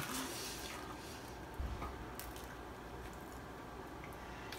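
Faint sounds of eating fast food: quiet chewing and small clicks from handling food and paper wrappers, with a soft thump about one and a half seconds in.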